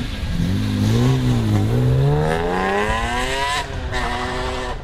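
Car engine and exhaust under brisk acceleration from almost a standstill, with the newly fitted exhaust cutout valve open. The pitch climbs through the gears, dipping briefly at a shift about a second and a half in, rising long and high, then dropping sharply at the next shift near the end.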